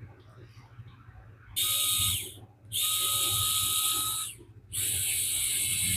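Mini electric precision screwdriver's motor run three times in short bursts, each a steady high whine over a hiss that starts and stops abruptly; the third run is at a different pitch from the first two.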